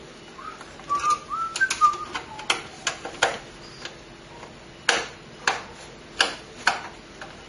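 A few short whistled notes near the start, then a run of sharp clicks about every half second as a screwdriver turns a screw through a motherboard into a PC case.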